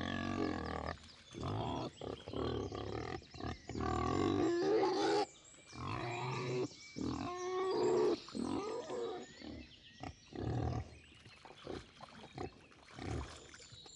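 Sardinian wild boars (Sus scrofa meridionalis) grunting and calling off and on, with short pauses between the calls.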